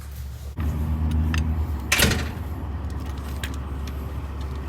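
A door opens onto the low hum of idling truck engines, and about two seconds in a door shuts with one loud bang while the engine hum goes on.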